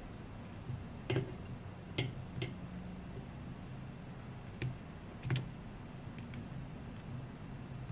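Several sharp, irregular small clicks of pliers and metal tools handling the wires at an electric scooter hub motor's stator, over a low steady hum.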